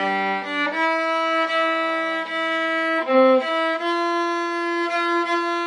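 Viola played with the bow, a melody of long held notes that changes pitch every second or so, with a short, louder note a little past three seconds in.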